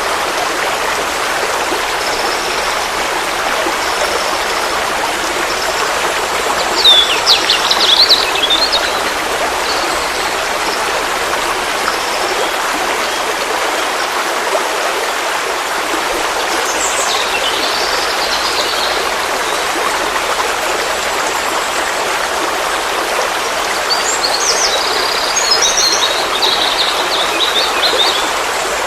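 Forest stream flowing steadily, a constant rush of water. Birds chirp over it: a loud call about seven seconds in, another around seventeen seconds, and a longer run of chirps near the end.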